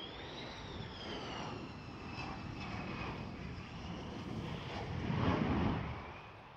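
McDonnell Douglas F-15E Strike Eagle on landing approach with its gear down. Its twin Pratt & Whitney F100 turbofans give a high whine that rises slightly and then sinks in pitch as the jet passes, over a jet roar that grows to its loudest about five seconds in and then fades.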